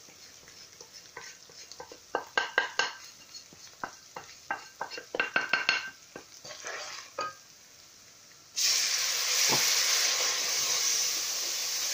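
Spoon clinks and taps against a steel cooking pot while spices go into the oil, then about eight and a half seconds in a sudden loud sizzle as a splash of water hits the hot oil and onion-garlic masala, which keeps sizzling while it is stirred.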